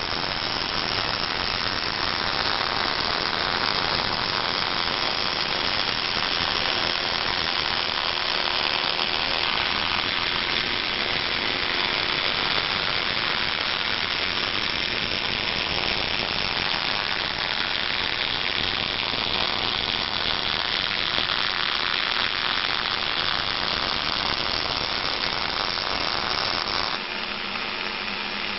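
Gas-shielded wire-feed (MIG) welding arc from a bore-welding torch running steadily, a continuous dense hiss as weld is laid around the inside of a bore. The sound thins and drops slightly near the end.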